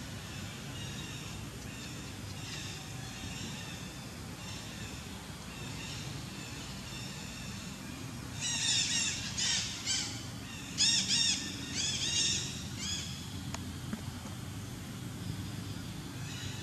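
A run of loud, high-pitched squawking animal calls in several quick clusters for about four seconds around the middle, over faint background chirping and a steady low rumble.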